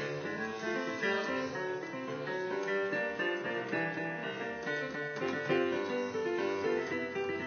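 Digital piano played with both hands in a rumba-style salsa medley: continuous chords and runs with no breaks.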